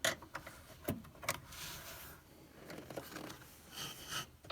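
A few sharp metal clicks and a short scrape of a hand tool working a line fitting loose on a Mercedes Sprinter's exhaust pressure sensor.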